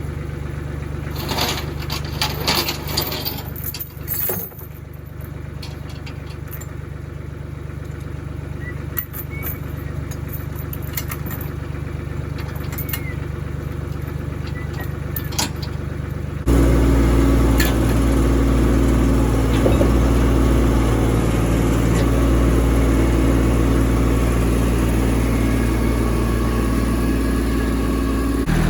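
An engine idling steadily, with scattered clicks and rattles in the first few seconds. About two-thirds of the way in, the engine sound becomes abruptly louder and fuller.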